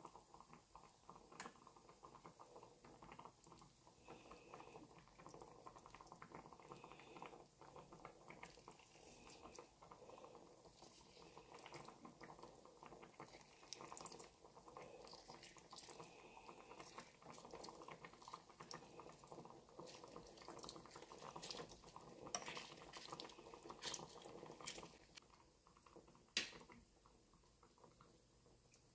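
Gheimeh stew faintly simmering in a nonstick pan: a steady soft bubbling with many small pops, and one sharper click near the end.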